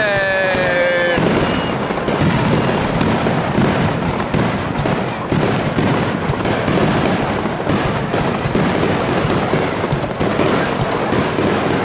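Fireworks display: a dense, continuous run of shell bursts and crackling, with no break. A brief held pitched sound, a voice or a whistle, sits over it in the first second.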